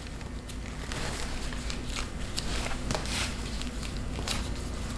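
Faint rustles and light taps of a leather sandal being handled and slipped onto a foot, a few soft clicks spread through, over a steady low hum.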